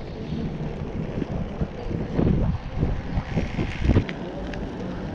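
Wind buffeting the microphone of a GoPro action camera on a moving bicycle, a low rumble with gusts that peak about two seconds in and again near four seconds.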